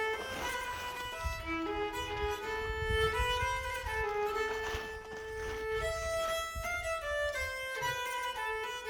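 Background music: a fiddle playing a melody of held notes.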